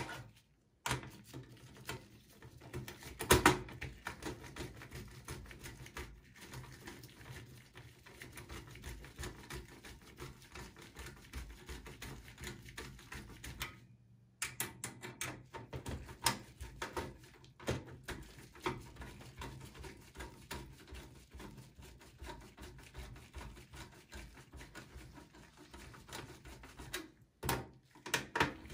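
Screwdriver loosening the screws of a desktop PC's CPU cooler: many light clicks and metal scrapes, with one louder knock about three seconds in.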